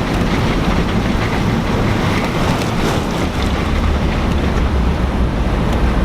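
Jeep driving through deep floodwater: a steady rush of water against the body, with the engine running underneath.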